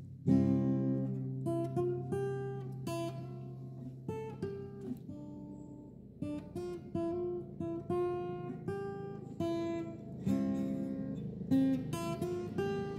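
Background music on acoustic guitar. It opens with a loud strum, then moves to single plucked notes that ring and die away, with more strummed chords near the end.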